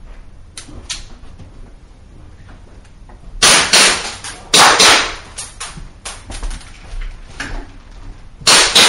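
Pistol shots fired in quick pairs at a timed practical-shooting stage, with a short ring of room echo. After about three quiet seconds come two fast pairs of loud shots, then several fainter clicks and knocks, and another pair near the end.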